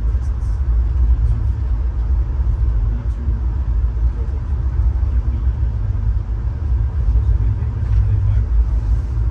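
Passenger train car rolling along the track at speed, heard from inside the car: a steady low rumble with a few faint ticks.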